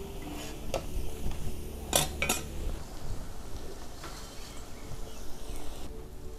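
Metal spatula and perforated metal skimmer clinking and scraping against a metal wok as fried tempeh is lifted out, with a few sharp clinks, the loudest pair about two seconds in. Quieter handling follows as the pieces are tipped onto a plate.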